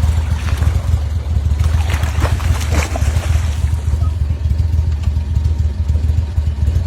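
Steady low drone of a motor running on a boat, with a few short, sharper noises about two to three seconds in.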